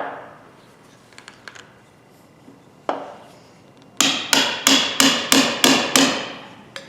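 Hammer blows on a pair of rust-seized pliers: one strike, then a quick run of about seven ringing metal strikes, roughly three a second, knocking at the frozen joint to free it.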